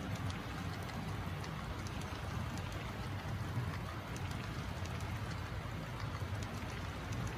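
Model railroad freight cars, autoracks and piggyback flatcars carrying trailers, rolling past on the track: a steady low rumble with light, scattered clicks of the wheels on the rails.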